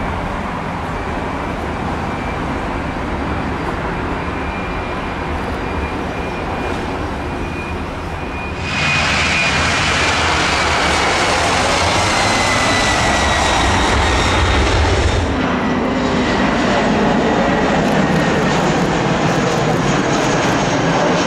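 Boeing 767-300 freighter's twin jet engines at takeoff power on the takeoff roll: a steady jet noise with a high whine that jumps louder about nine seconds in and slides down in pitch as the aircraft passes. About fifteen seconds in this gives way to an Airbus A321 on final approach, a lower, softer jet hum with a steady whine.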